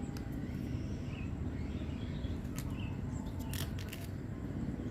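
Outdoor ambient noise: a steady low rumble with a few faint high chirps, and a couple of sharp clicks past the middle.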